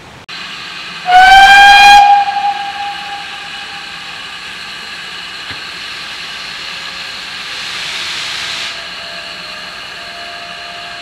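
GWR Manor-class 4-6-0 No. 7820 Dinmore Manor sounding its steam whistle: one loud blast about a second in, lasting about a second and then dying away. A steady hiss of steam follows, louder for about a second near the end.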